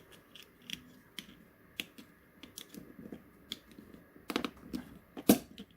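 3D-printed plastic parts clicking and knocking as they are handled and pushed together, a lug being fitted into a slot, with a cluster of clicks about four seconds in and one sharp snap just after.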